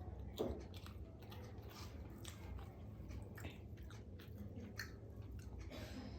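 Close-up eating sounds: chewing and biting into masala dosa, with irregular crisp crunches and wet mouth clicks, one sharper crunch about half a second in.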